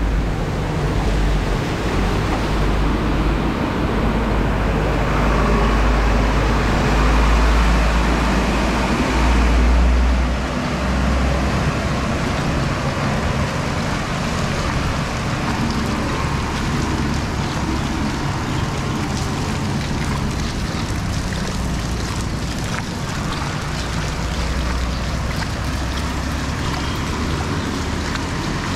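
Steady rain and water noise with wind rumbling on the microphone. In the first ten seconds an auto-rickshaw's tyres slosh through the floodwater, making that stretch louder.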